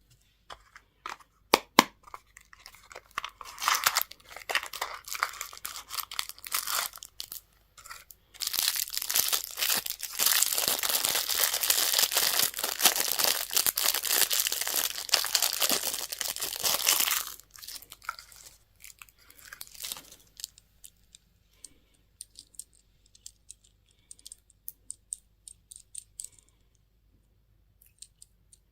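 Packaging being torn open and crinkled by hand: a few sharp clicks, then two long stretches of tearing, the second and louder one lasting about nine seconds, followed by scattered small crinkles and clicks.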